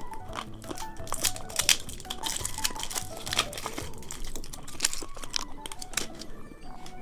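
Candy packaging crinkling and tearing, with crisp crunching clicks, over light, tinkly background music.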